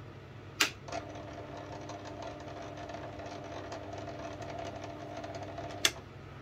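Small metal lathe switched on with a sharp click, its spindle and motor running with a steady hum for about five seconds, then switched off with a second click.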